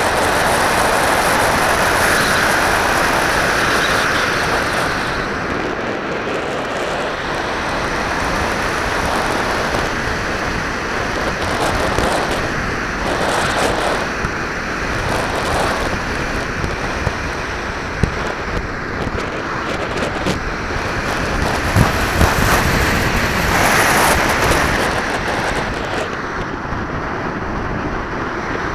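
Wind rushing over the microphone of a small keychain camera mounted on a radio-controlled glider in flight: a steady, noisy rush that is stronger for the first few seconds and then eases a little.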